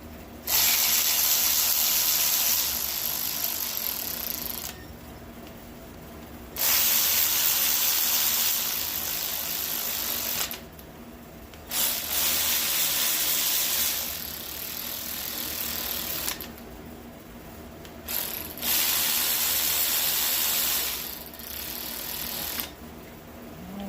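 Cordless power tool running in four long bursts of several seconds each, with short pauses between.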